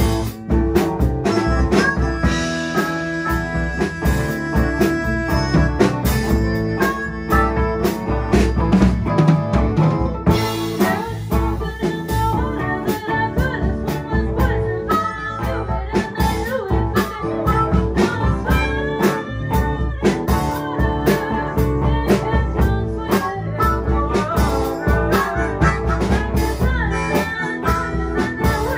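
Live blues-rock band playing an instrumental stretch, with guitar over a steady drum-kit beat.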